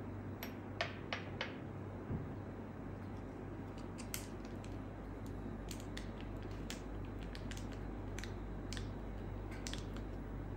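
Scattered light clicks and taps of a metal teaspoon against a small glass dish and a ceramic bowl, with handling of a paper sachet of powdered food colouring, over a steady low hum.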